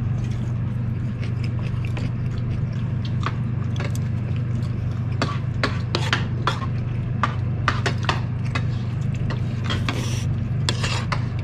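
Eating sounds: chewing, with chopsticks and a spoon clicking against dishes in short, irregular taps, over a steady low hum.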